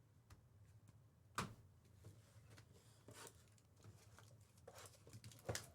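Near silence, with a few faint clicks and rustles of trading cards being handled and flipped.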